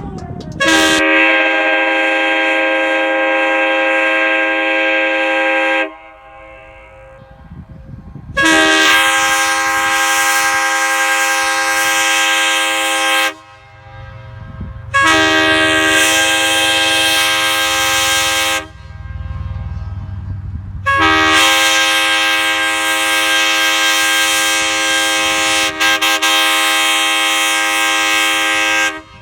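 USA Train Horns RC3 three-chime cast-aluminium air horn sounding a chord in four blasts, each starting and cutting off sharply: two long ones, a shorter third and a longest fourth, the long-long-short-long grade-crossing pattern.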